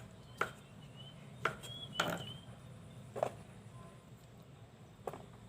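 Knife chopping on a cutting board: about five separate sharp strikes at an uneven pace.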